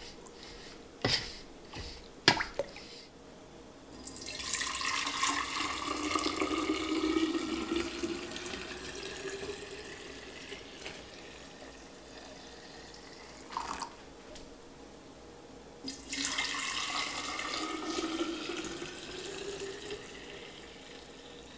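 Herbal iced tea poured from a stainless steel bowl into a glass mason jar, the splashing rising slowly in pitch as the jar fills. It trails off, a clink follows, then a second pour into another jar. A few metal clinks of a spoon against the bowl before the pouring.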